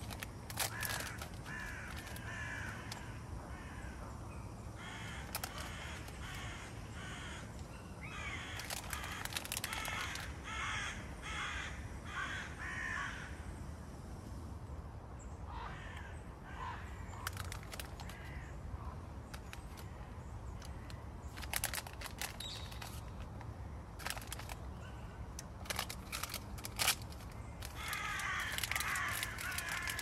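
Crows cawing in runs of repeated calls, coming in several bursts a few seconds apart, over a steady low rumble, with a few light clicks and knocks.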